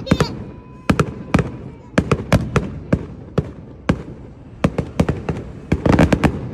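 Fireworks going off in a rapid, irregular string of sharp bangs, about three a second, packed closest together near the end.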